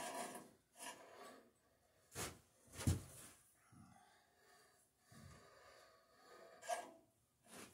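Dunlap bandsaw's upper wheel and new blade turned and handled by hand while the blade tracking is checked: a few scattered light knocks and rubs, with one louder thump about three seconds in.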